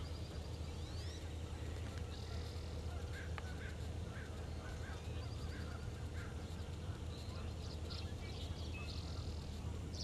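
Birds calling on a pond: a run of short, evenly repeated calls in the middle, with higher chirps and buzzy trills near the start and the end. A low steady rumble runs underneath.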